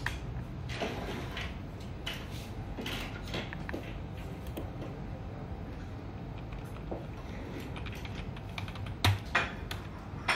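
Scattered clicks of typing on a computer keyboard and clicking a mouse, over a steady low background hum. A few sharper, louder clicks come near the end.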